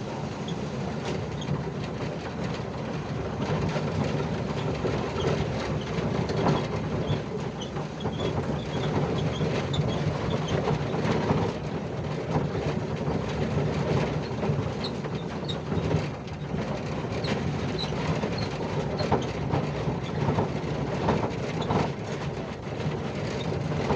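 Volkswagen Kombi van driving, heard from inside the cabin: a steady engine and road rumble with loose rattling and knocking from the body.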